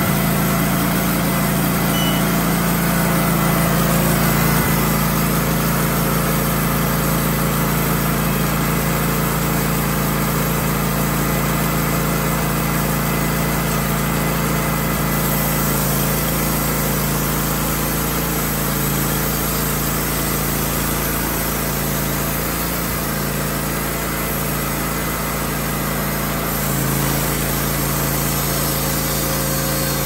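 Wood-Mizer LT15 band sawmill running steadily as it saws through a log, its motor holding an even pitch.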